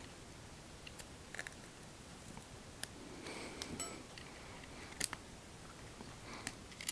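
Faint scattered clicks and light scraping of pry tools working around the edge of a second-generation iPod Touch, prising the glass screen away from its frame; the sharpest click comes about five seconds in.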